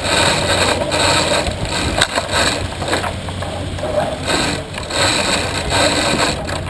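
Wind buffeting the microphone and water rushing past the hull of a sailboat under sail, rising and falling in irregular gusts over a steady low rumble.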